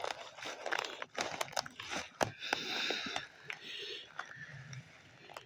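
Footsteps crunching and rustling through fallen leaf litter on a forest floor, an irregular run of crackles with sharp clicks among them.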